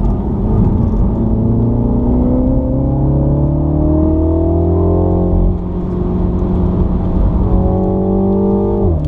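Mini's engine accelerating hard, heard from inside the cabin: its pitch climbs for about five seconds, drops at an upshift, climbs again, then falls away sharply near the end as the throttle is lifted for braking.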